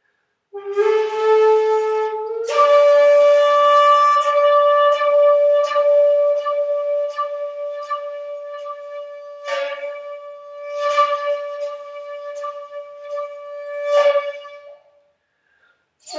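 Solo shakuhachi, a bamboo end-blown flute, playing a slow breathy phrase: a lower note begins about half a second in, steps up to a higher note after about two seconds, and that note is held for some twelve seconds with several swelling breath accents before fading out near the end.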